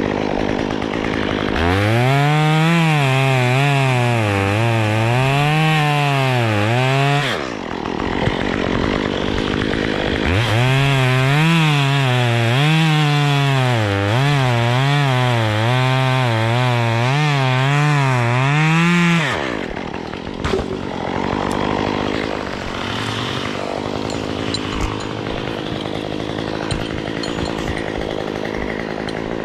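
Chainsaw at high revs cutting through the trunk in two long runs, its pitch dipping and rising as it bogs under load, dropping back to a lower idle between and after.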